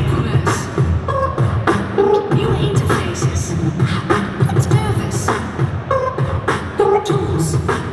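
Human beatboxing into a handheld microphone, amplified: a steady rhythm of kick- and snare-like mouth sounds, mixed with short pitched vocal effects.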